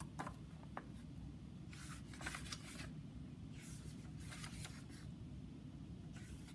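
Faint paper rustling as the pages of a hardcover picture book are turned, in two short spells about two and four seconds in, over low room noise.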